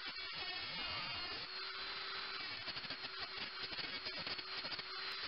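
Small rotary tool's abrasive cutting wheel running and cutting through a size 6 steel screw right at the nut: a steady motor whine with a gritty hiss. The pitch wavers in the first couple of seconds as the wheel bites into the screw.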